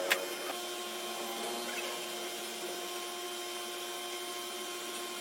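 A sharp click, then a small electric motor running with a steady, even whir.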